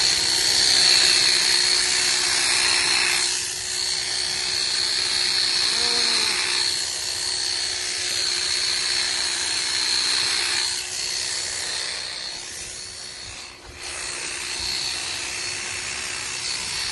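Handheld electric sheep shearing machine running steadily with a high whine, its cutter working through the fleece; the sound dips briefly a few times.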